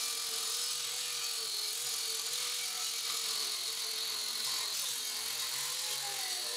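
Corded angle grinder with a cut-off wheel cutting through a 3/16-inch steel bracket: a steady motor whine under a continuous high hiss of the wheel on steel, the pitch wavering slightly under load. Right at the end the whine starts to fall as the grinder is let off.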